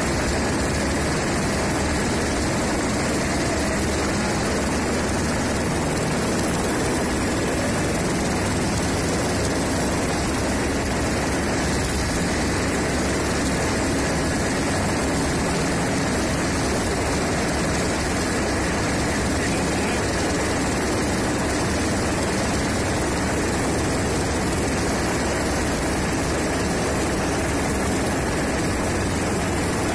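Steady running noise of a low-flying rotorcraft's propellers and motors, with a constant high whine over it.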